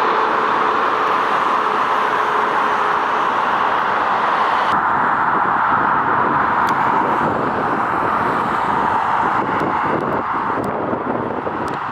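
Jet engine noise from an Emirates Boeing 777, a loud steady rush with a faint whine that fades out in the first few seconds.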